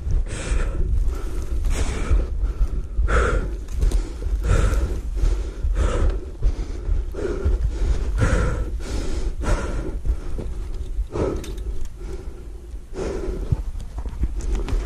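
A man's heavy breathing close to the microphone, one loud breath about every second, out of breath from the walk.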